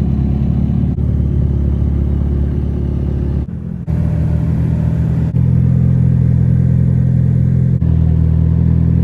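Car engine running loud and low, heard in short clips joined by abrupt cuts, its pitch shifting at each cut.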